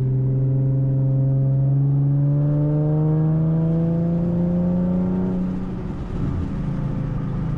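2014 Ford Mustang with a tuned exhaust under throttle: the engine note climbs steadily in pitch for about five seconds. It then drops as the throttle is eased off and settles into a steady drone.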